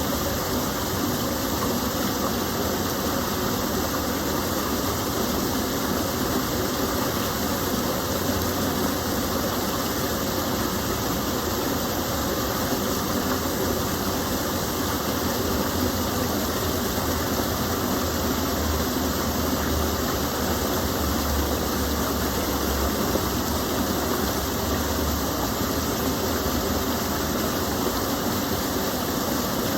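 Steady rush of water from a small stream spilling over a drop, even and unbroken. A faint low rumble rises under it in the middle stretch.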